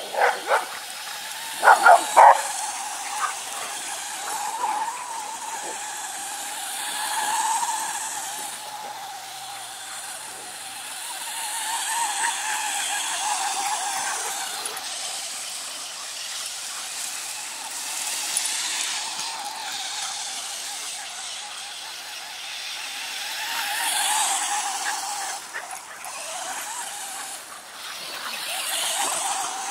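Remote-control car's motor whining as it drives about, the whine swelling and fading in loudness as the car speeds up, turns and passes. A few sharp dog barks at the start and about two seconds in.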